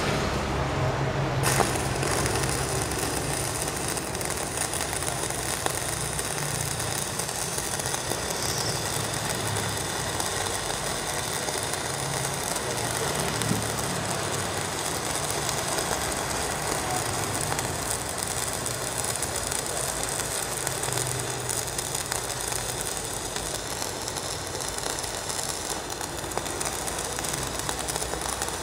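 Two stick-welding arcs burning at once with 3.2 mm electrodes, fed by a Protech MK200 and a Jacpro MMA 325 inverter welder set to maximum welding current. The arcs strike about a second and a half in, then give a steady crackle and sizzle.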